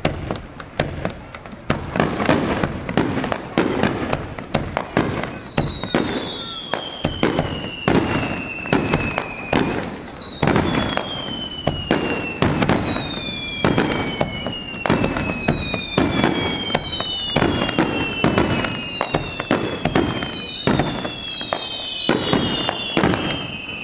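Aerial fireworks bursting in quick succession, a dense run of sharp bangs and reports. From about four seconds in, long whistles sound over them again and again, each one falling steadily in pitch over a few seconds.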